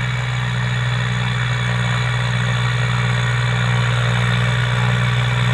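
New Holland TT55 tractor's diesel engine running steadily under load as it pulls a rotary tiller through the soil, growing a little louder as it comes closer.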